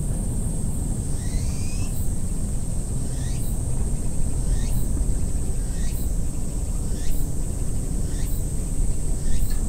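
Outdoor ambience: a steady low rumble and a steady high-pitched whine, with a short rising call repeating about once a second.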